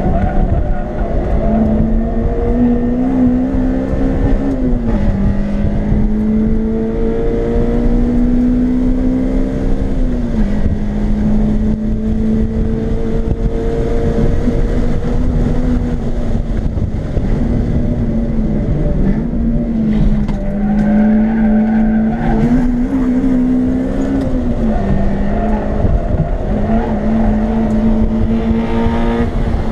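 Acura RSX's 2.0-litre four-cylinder engine heard from inside the cabin while lapping a track, running hard at high revs and dipping in pitch several times before climbing again, over a steady rumble of road and wind noise.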